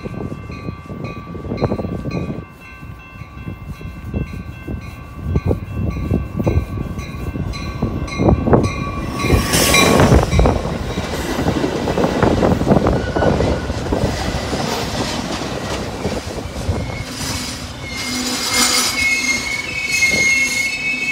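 Metra commuter train arriving: a ringing bell repeats about twice a second as it approaches. From about nine seconds in the bilevel cars pass close by with loud wheel-on-rail noise and clatter. Near the end a high wheel squeal rises as the train slows for its stop.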